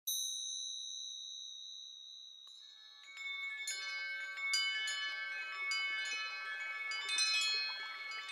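Wind chimes: one high strike rings out and fades, then about three seconds in many chimes start tinkling together in a dense, overlapping run.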